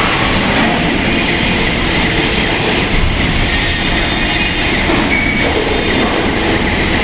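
The boom of a column-and-boom welding manipulator travelling in or out on its motor-driven wheels: a steady, loud rolling machine noise with a brief high squeal about five seconds in.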